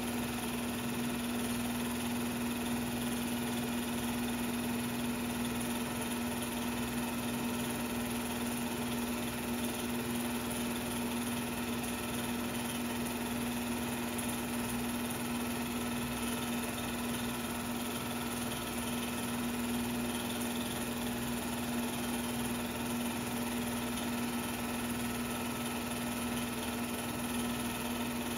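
Steady machine hum with one strong low tone and an even hiss, unchanging throughout, typical of a 16mm film projector's motor and fan running; no sound from the game itself is heard.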